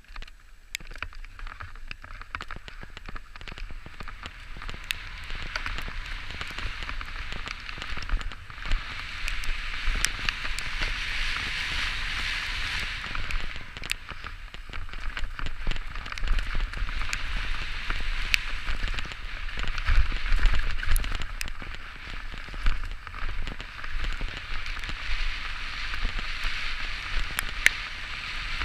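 Santa Cruz Bronson mountain bike's tyres rolling fast over wet dirt and gravel trail: a steady hiss and crackle, with sharp clicks and knocks from the bike over bumps and low wind rumble on the microphone.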